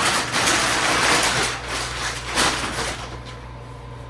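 Rustling and crinkling from a vacuum-packed sofa cushion and its plastic wrapping being handled, coming in several surges for about three seconds, then dying down.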